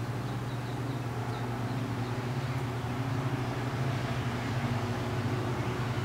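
Steady low hum over an even background hiss, with a few faint, short high chirps in the first two seconds.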